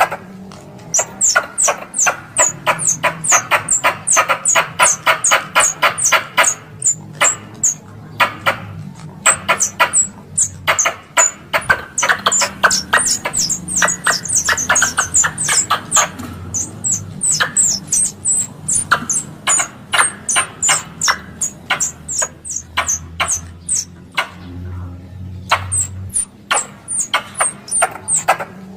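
Tree squirrel calling: a rapid, repeated series of sharp, high chirps that drop in pitch, with fast clicking chatter between them, the kind of call played as a lure to draw squirrels in. The calling breaks off briefly a few times.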